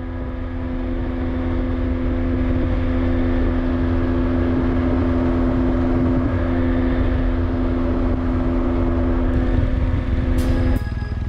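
Motorcycle cruising at a steady highway speed, heard through its onboard camera: a steady engine drone under heavy low wind rumble. It swells up at the start and cuts off abruptly near the end.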